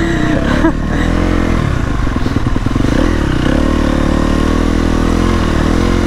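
KTM 250 SX-F motocross bike's four-stroke single-cylinder engine running at fairly low, steady revs, with small rises and dips in pitch as the throttle is worked gently.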